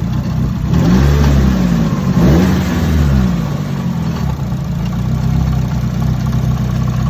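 Nissan 180SX engine idling, blipped twice in the first three seconds, each rev rising and falling back, then settling to a steady idle. The owners are listening for a strange noise from the engine bay, which they suspect is something loose or knocking against something.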